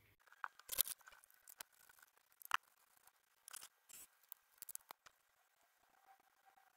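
Faint, scattered clicks and rustles of gloved hands handling and fitting the plastic housing parts of an electric shaver, the sharpest click about two and a half seconds in.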